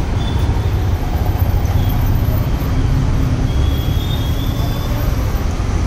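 Steady low rumble of street traffic, with a few faint high tones near the middle.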